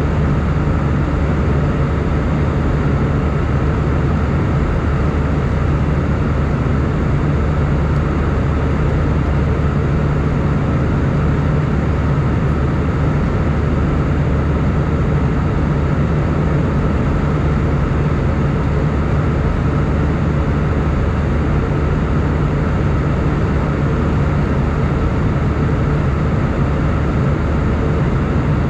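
Airbus A320 cabin noise in flight: a steady, deep jet-engine drone under an even rush of air.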